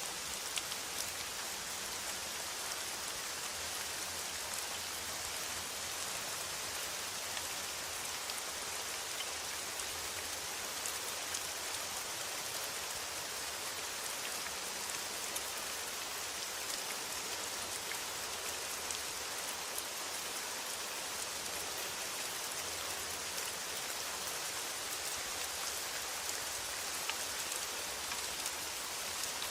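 Steady rain falling on a metal roof: an even hiss dotted with many small sharp ticks of single drops.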